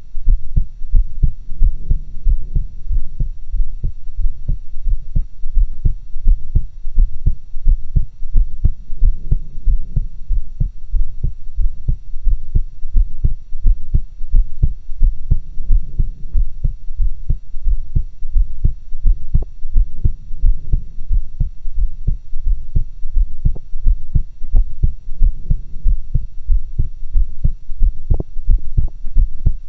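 A woman's heartbeat picked up through a stethoscope: a regular lub-dub rhythm, strongest in the low end, with a faint steady hum behind it.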